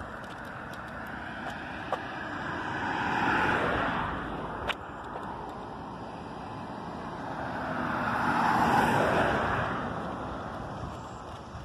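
Two road vehicles passing by, each swelling and fading: the first about three seconds in, a louder one about nine seconds in. A single sharp click about five seconds in.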